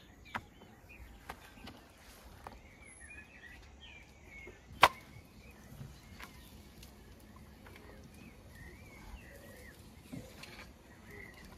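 Small birds chirping steadily in the background, with a few faint taps as thin dough is handled on the board and griddle. One sharp click about five seconds in is the loudest sound.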